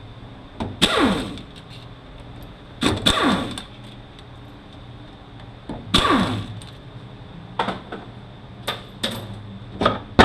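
A small power driver spinning out the T30 Torx bolts on an automatic transmission pump in three short bursts, each falling in pitch as the tool winds down. A few light metallic clicks of parts being handled come near the end.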